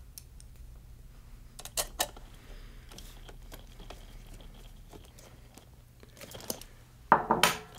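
Small clicks and rattles of a hex key and screws being worked into aluminium channel brackets, with two sharp clicks about two seconds in. Near the end, a louder burst of rustling and knocks as parts are handled.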